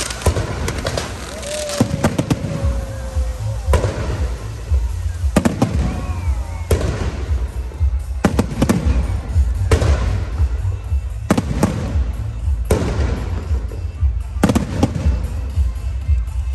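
Fireworks going off in a steady series of loud bangs, about one every one and a half seconds, over a low rumble.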